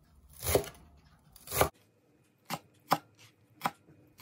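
A wide cleaver chopping fresh coriander leaves on a wooden cutting board: about five separate chops, unevenly spaced.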